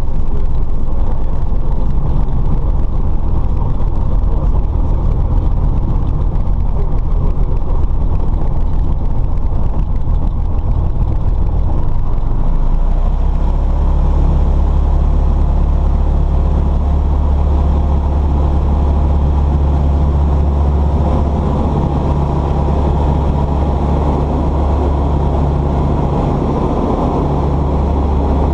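Light aircraft's piston engine and propeller running steadily, heard inside the cabin as a loud low drone. About 13 seconds in, the drone deepens and grows stronger, and it holds that new note to the end.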